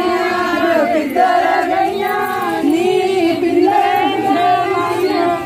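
A group of women singing Punjabi boliyan together in chorus, with long held lines.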